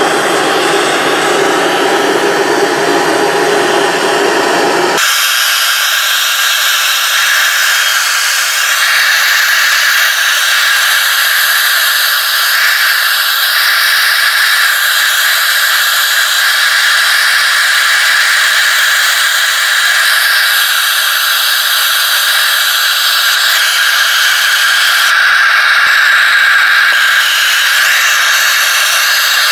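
Hose-fed gas torch burning steadily, its flame played into a crucible to melt the flux glaze. The flame hisses throughout; a deeper rumble under the hiss cuts off abruptly about five seconds in, leaving a thinner, higher hiss.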